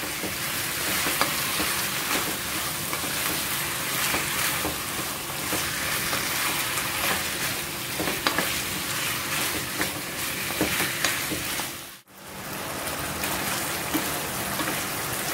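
Chicken pieces sizzling in oyster sauce in a frying pan as they are sautéed, with a wooden spatula stirring and scraping them in small clicks. The sound cuts out for a moment about twelve seconds in, then the sizzling goes on.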